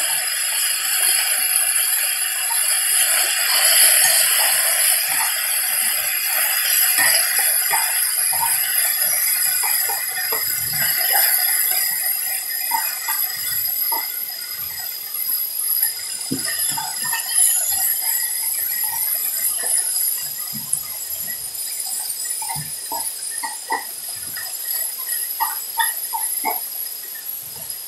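Beef rib meat sizzling on a hot iron griddle, a steady hiss with spitting, crackling pops. The hiss slowly dies down while the separate pops stand out more toward the end.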